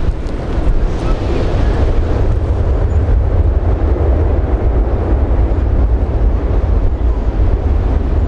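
Wind buffeting the microphone: a loud, steady low rumble with no breaks.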